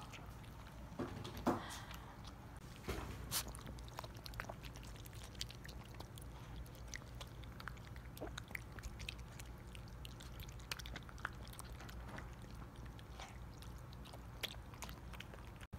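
Toy poodle eating wet food from a bowl: faint chewing with many small scattered clicks, a few louder ones in the first few seconds.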